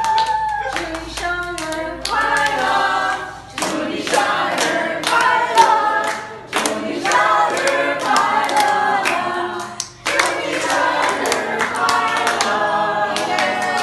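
A group of people singing together while clapping their hands along.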